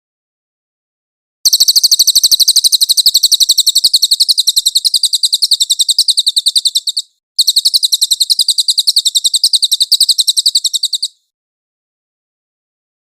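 A cililin bird singing: two long, high, rapid trills of evenly repeated chirps. The first starts about a second and a half in and lasts about five and a half seconds; after a brief break the second lasts about four seconds.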